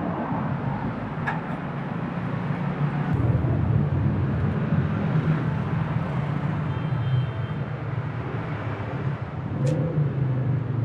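A motor vehicle engine running steadily with road noise, growing slightly louder about three seconds in.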